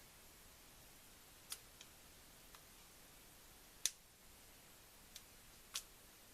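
A few sharp, light clicks and taps from small hard laptop parts being handled, the loudest about four seconds in, over faint hiss.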